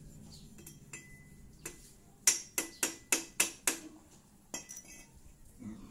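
Metal tool striking metal on a motorcycle's rear suspension: a quick run of about six sharp, ringing clinks, about three a second, with a few fainter clicks before and after.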